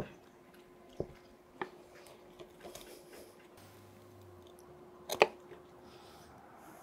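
Knife carving a roast goose on a wooden cutting board: soft squishy cutting through meat and skin, with a few sharp clicks and knocks, the loudest a double click about five seconds in. A faint steady hum runs underneath.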